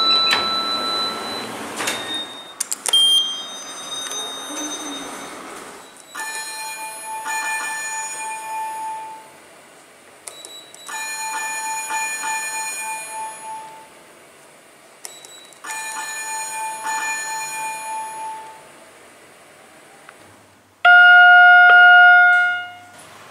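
Lift arrival chimes from several lifts in turn: a held electronic tone and a short beep, then a ringing bell-like chime sounding three times about five seconds apart, and near the end a single loud electronic tone lasting about a second and a half.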